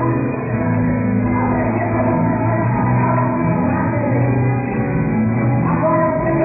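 Live church band playing amplified music with singing, with the sound muffled and its highs cut off.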